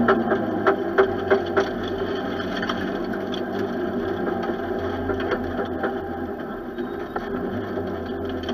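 Renault 5 GT Turbo rally car's turbocharged four-cylinder engine heard from inside the stripped cabin, running steadily at low revs as the car rolls slowly. Several sharp clicks and knocks come in the first second and a half.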